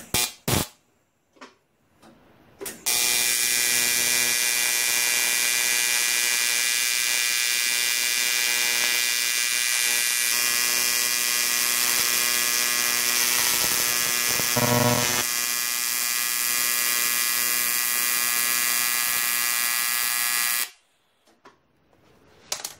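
AC TIG welding arc on cast aluminium: a steady, loud electrical buzz with a strong high hiss. It starts about three seconds in, after a few short crackles, and cuts off suddenly near the end.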